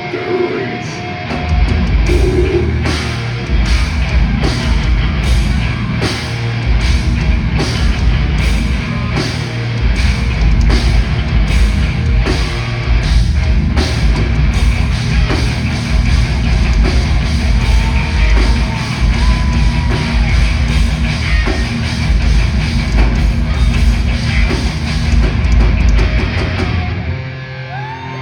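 Heavy metal band playing live: distorted guitars and bass over a heavy low end, with drums striking a cymbal about twice a second. The music stops about a second before the end.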